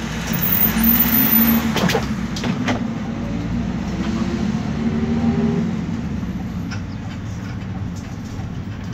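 Iveco Daily diesel minibus driving, heard from inside the cabin: a steady engine and road rumble with squeaks and creaks from the undercarriage, including a few short clicks about two seconds in.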